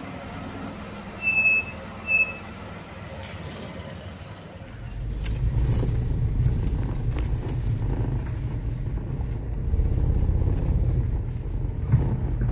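Tata Tigor's three-cylinder engine running steadily, with two short high beeps about one and two seconds in. From about five seconds in the engine is heard from inside the cabin as a louder low rumble that swells and eases, with scattered knocks of the phone being handled.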